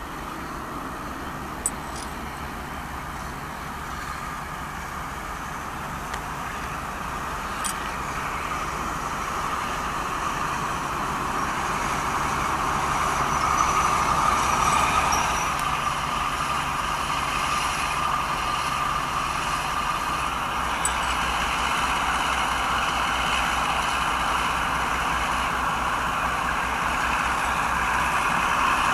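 Class 52 'Western' diesel-hydraulic locomotive with twin Maybach diesel engines running in slowly, its engine noise growing steadily louder as it approaches. A few sharp clicks sound over the running engine.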